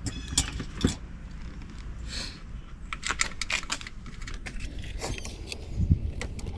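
Irregular light clicks and small knocks of parts and tools being handled, with a brief rustle about two seconds in.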